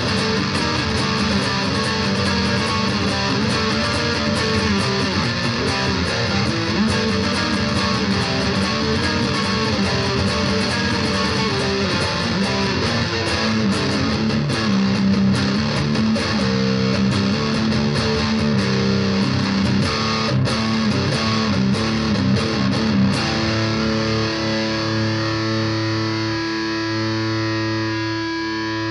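BC Rich Virgin VG1 electric guitar played through the distortion channel of a Roland Cube Lite practice amp: continuous distorted riffing and chords, ending with a chord held and left ringing for the last several seconds.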